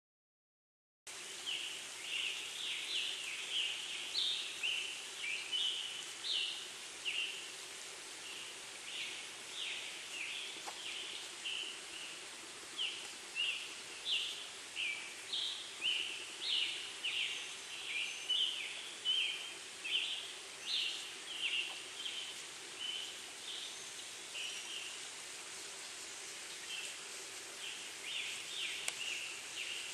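Dawn chorus of forest birds: quick runs of short, high chirps repeated over and over, starting about a second in. Beneath them runs a steady rushing hiss from the nearby brook.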